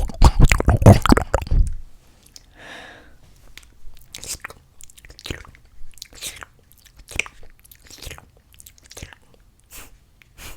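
Close-miked ASMR mouth sounds imitating a pig eating: a dense run of loud chomping noises for about the first two seconds, then much quieter, separate crunchy clicks, roughly one or two a second.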